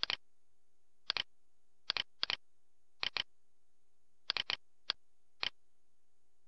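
Computer mouse button clicking, each click a quick press-and-release double tick, about eight clicks spread irregularly over five seconds, over a faint steady hum.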